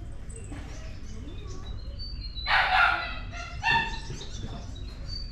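A dog barking twice, a harsh bark about two and a half seconds in and a shorter, higher yelp about a second later, with birds chirping faintly.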